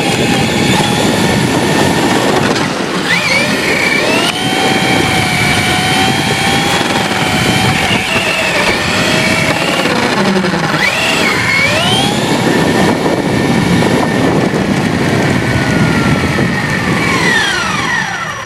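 Electric RC car motor running hard, its whine rising and falling in pitch with the throttle over a loud, rough rattle of the drivetrain. Near the end the whine falls away as the car slows.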